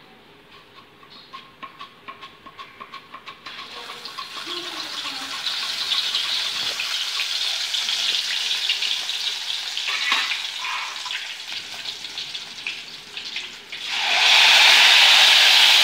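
Raw banana being sliced on a hand-held chips slicer over a kadhai of hot oil: a quick run of slicing clicks, then the slices sizzling as they fry. The frying hiss builds steadily and turns much louder about two seconds before the end.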